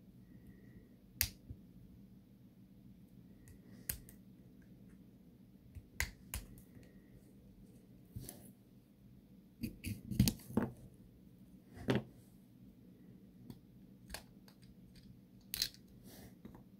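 Small plastic clicks and snaps of a Mazda car key fob being handled and pried apart, a dozen or so sharp clicks spaced out, with a quick run of them about ten seconds in.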